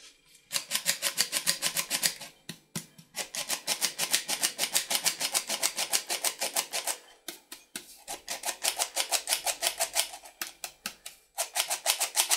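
Hand-held metal flour sifter being worked in quick strokes, a fast rhythmic rasping click about five or six times a second, in several runs with short pauses between them.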